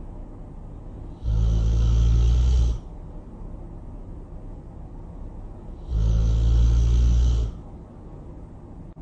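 Loud snoring: two long snores, each about a second and a half, coming about four and a half seconds apart, with quieter breathing between them.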